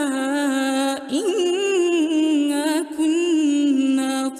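A woman's voice reciting the Quran in a melodic, drawn-out tajweed style, holding long notes with ornamented turns, with brief pauses about a second in and near three seconds.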